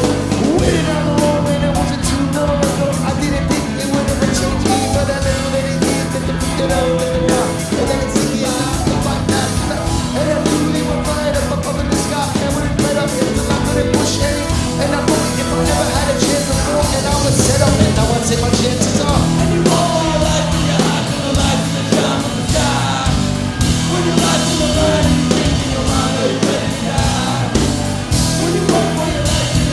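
A live electronica-rock band playing loud and without a break: a steady drum-kit beat under bass, electric guitar and synthesizer keyboards.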